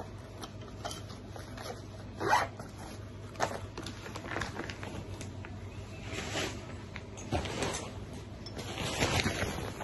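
Handling noise: irregular rustling and light knocks as gear is moved about right next to the microphone, with one louder scrape a couple of seconds in.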